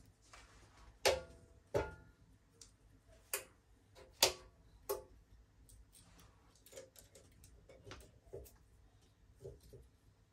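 Small hand tools clicking and tapping against a phone during a screen repair: five sharp clicks in the first five seconds, then softer, irregular ticks.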